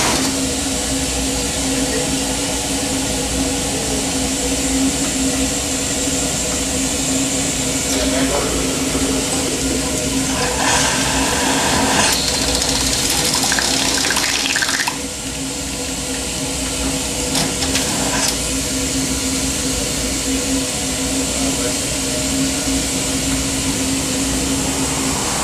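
Steam hissing and rushing out at the side of Wee Georgie Wood, a small John Fowler & Co. steam locomotive, with a steady low hum beneath. The hiss grows louder for a few seconds in the middle, then eases.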